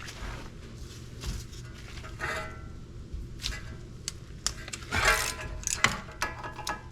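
Metal hand tools clinking and clicking against the hub assembly's rusted 15 mm bolts: scattered sharp clicks with a few short metallic rings, the loudest about five seconds in.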